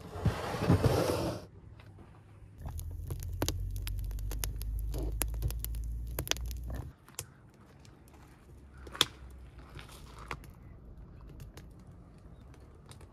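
Cloth rustling loudly for about a second and a half at the start. Then a wood fire crackling in a clay oven, a low rumble with many sharp pops, which stops about two-thirds of the way through and leaves only faint occasional clicks.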